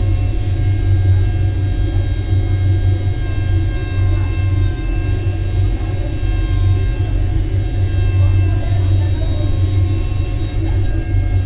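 A steady, loud low hum and rumble, with faint steady whining tones above it.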